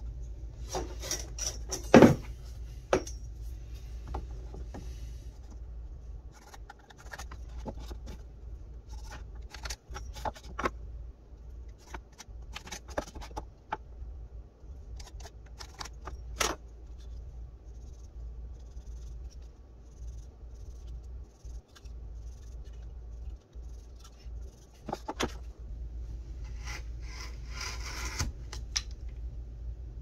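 Hand woodworking handling sounds: a softwood block and hand tools being pressed, shifted and set down on a wooden board, with scattered clicks and knocks, the loudest a sharp knock about two seconds in. Near the end, a carving gouge scraping into the wood.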